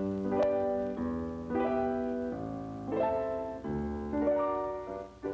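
Background music: a piano playing a slow melody of held notes and chords.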